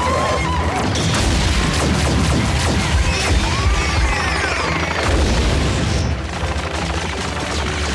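Animated robot battle sound effects: booms, rapid blaster fire and crashes of metal, with a few swooping energy-weapon sounds, over background music.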